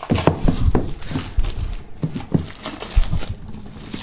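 Plastic shrink-wrap film crinkling and crackling as it is pulled and peeled off a cardboard box, in a dense run of irregular crackles, with a couple of dull knocks about one and a half and three seconds in.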